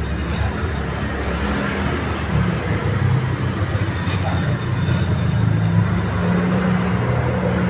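Mercedes-Benz C200 (W205) driving at speed with a steady low drone. The mechanic suspects a worn front wheel hub bearing as the cause.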